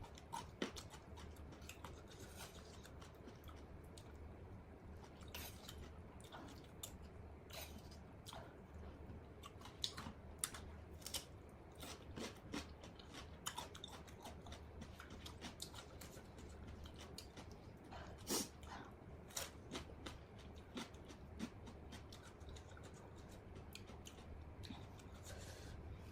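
A person chewing glass noodle salad with raw vegetables, close to the microphone. There are irregular sharp crunches and clicks, several a second at times, the loudest about 18 seconds in.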